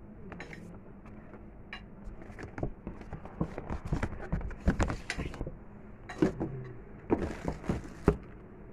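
Packaging being handled: irregular rustling with a string of knocks and taps as a cardboard phone box and its wrapping are moved about. The knocks start a couple of seconds in and are sharpest in the second half.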